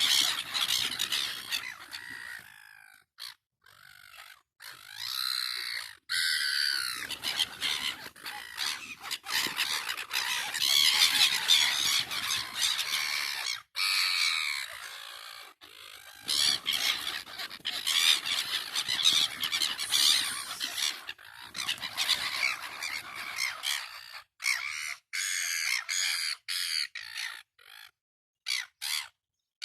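Several gulls calling and squawking over one another, typical of gulls squabbling. The calls are broken by abrupt short silences, more often near the end.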